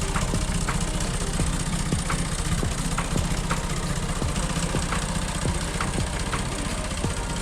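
Restored 1950 John Deere tractor's two-cylinder engine idling steadily, with a regular sharp knock about twice a second.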